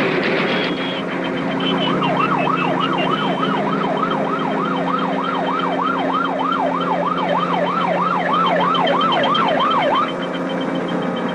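Police car siren yelping: fast rising-and-falling sweeps, about three a second. They start about two seconds in and stop near the end, over a steady low hum.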